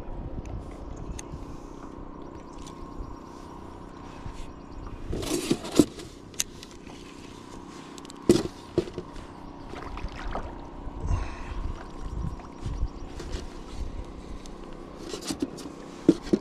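Wind rumbling on the microphone, with scattered clicks, a few sharp knocks and a brief scrape as a fishing rod and spinning reel are handled in a plastic kayak.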